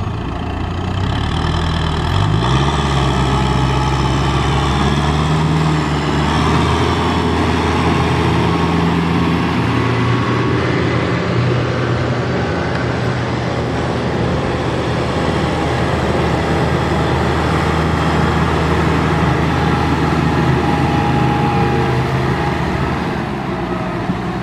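Farm tractor's diesel engine working hard under load while hauling a trailer through deep mud. It revs up about two seconds in, holds at high revs, and eases off near the end.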